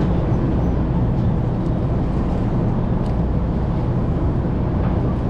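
Steady low rumble of a large charter fishing boat's engines, with a rushing of wind and water over it.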